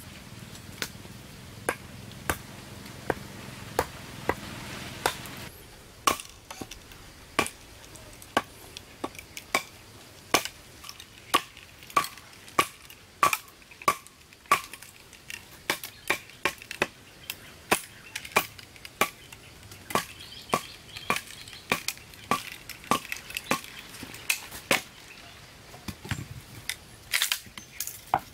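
Repeated chopping strokes, a blade biting into wood. They come about once a second at first, then settle to a steady pace of about two a second, each stroke with a short, bright ring.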